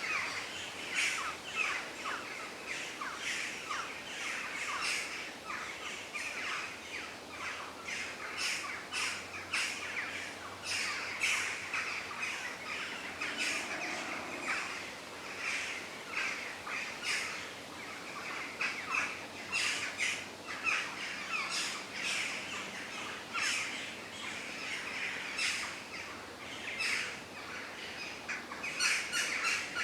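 Wild birds singing and calling outdoors: a dense chorus of short chirps and trills from several birds, over a faint steady background hiss.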